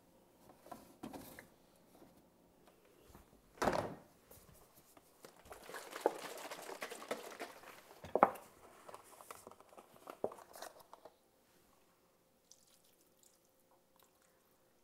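A refrigerator door shutting with a thump about four seconds in, then light rustling and clicks of a carton being handled at the stove, which die away to near quiet for the last few seconds.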